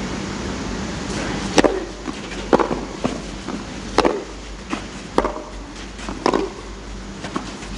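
Tennis ball struck back and forth with racquets in a clay-court rally: five sharp hits about a second apart, starting a little over a second in, with fainter ball and court clicks between them.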